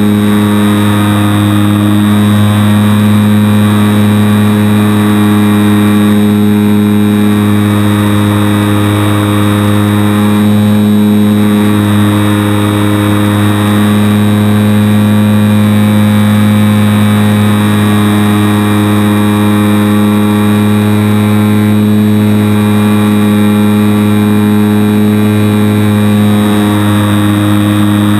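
HobbyZone Super Cub RC airplane's electric motor and propeller running at a steady pitch in cruising flight, heard close up from a camera mounted under the plane.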